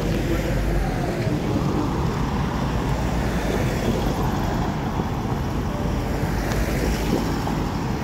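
Road traffic: cars and pickup trucks driving past on the roadside with steady engine and tyre noise, a pickup passing close near the end. Low wind rumble on the microphone underneath.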